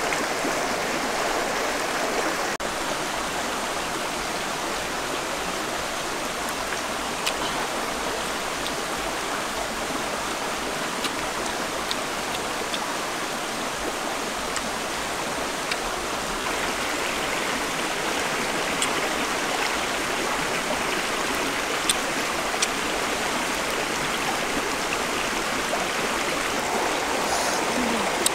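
Steady rush of a running stream, an even hiss of flowing water without pauses.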